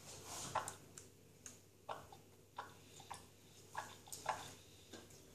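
Faint, wet mouth smacks of someone chewing a big bite of gummy candy, about two a second.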